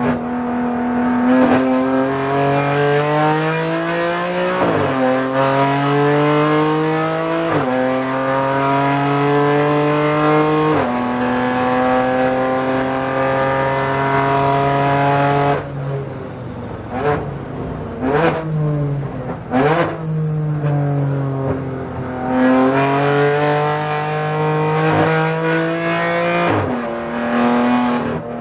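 BMW M4 GT4 race car's twin-turbo inline-six heard from inside the cabin, pulling hard through the gears with three quick upshifts. It then lifts off for braking with several throttle-blipped downshifts, and accelerates again with one more upshift near the end.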